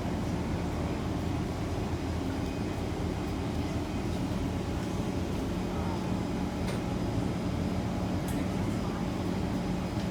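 Kawasaki C151 metro train running at speed through an underground tunnel, heard from inside the car: a steady rumble of wheels and traction equipment with a low hum, and a few faint clicks.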